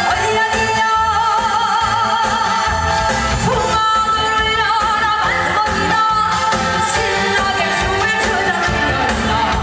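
A woman singing a trot song live through a PA, holding long notes with a strong vibrato, over loud amplified accompaniment with a steady beat.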